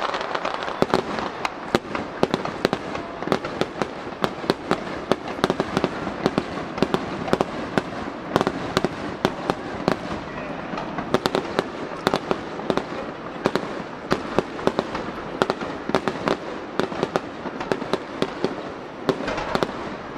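Aerial fireworks display: shells bursting overhead with a dense, irregular run of sharp cracks and pops from crackling stars, over a continuous rumbling haze.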